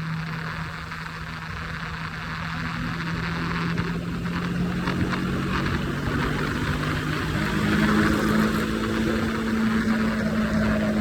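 Triumph Scrambler 400X's single-cylinder engine running at highway speed under wind noise. The engine note steps up in pitch about seven seconds in and grows a little louder.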